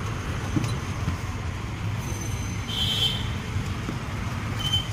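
Street traffic noise: a steady low rumble of passing vehicles, with short high-pitched tones about three seconds in and again near the end.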